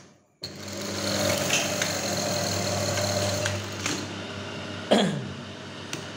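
Brother 814 buttonhole machine running steadily through its stitching cycle, then stopping about five seconds in with a knock and a quickly falling whine. The stop is too slow and too soft, so the stop adjustment screw needs turning back a little.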